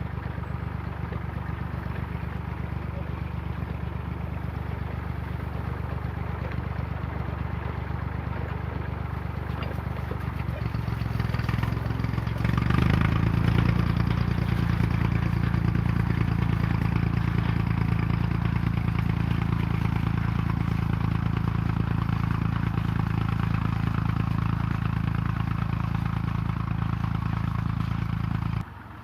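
Small Ferguson tractor's engine running steadily. About twelve seconds in it gets louder and its revs rise, and it cuts off suddenly near the end.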